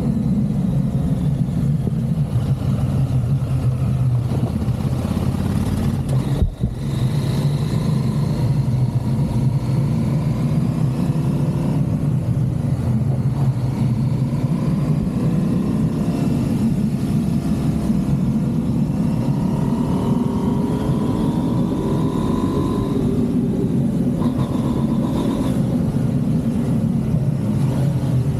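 Motorcycle engine running under way, its note rising and falling as the speed changes over a steady low rumble. There is a brief sharp break in the sound about six seconds in.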